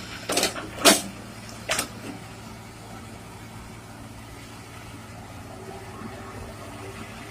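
Heavy excavator's diesel engine running steadily. Three sharp knocks or clanks come in the first two seconds, the loudest about a second in.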